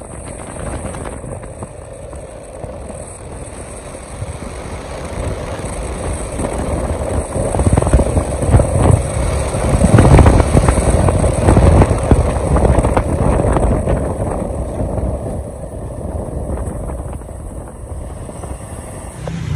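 A vehicle on the move: a steady low rumble of engine and road noise that swells louder about halfway through and eases off near the end.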